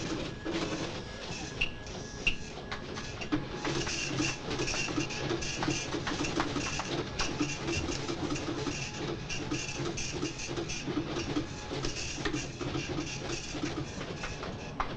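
Office machines clattering: rapid irregular mechanical ticking and chattering, like printers and terminal keyboards at work, over a faint steady hum.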